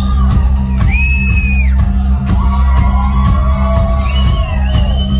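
Live rock band playing loud in a hall, with guitar, keyboards and drums over a heavy, boomy bass. Crowd members whoop and shout high over the music, with one long whoop about a second in and another near the end.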